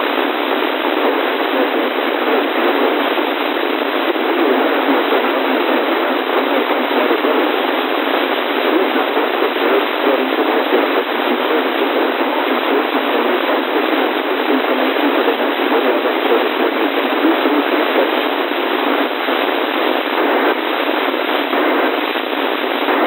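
Steady, loud radio static hiss with no signal, thin in tone and cut off sharply above and below, as from a radio receiver.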